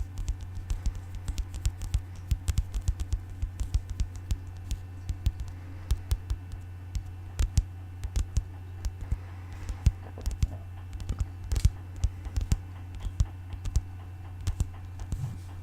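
Rapid, irregular ASMR tapping on an object, several taps a second, over a steady low hum.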